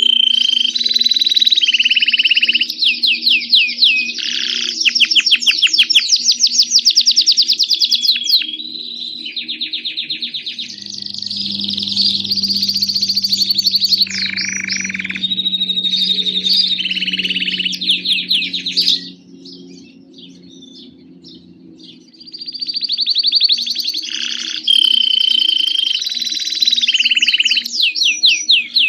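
Grey Belgian canary singing: long phrases of rapid rolling trills mixed with held whistled notes. The song breaks off for about three seconds roughly two-thirds of the way through, then starts again. A faint steady hum runs underneath.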